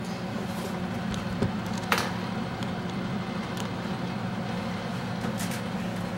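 Electric food dehydrator's fan running with a steady hum, with a single sharp click about two seconds in.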